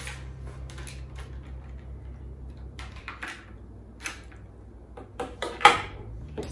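Hands unpacking a fishing bite-alarm swinger: plastic packaging rustling and small plastic parts clicking, with one louder clack about five and a half seconds in.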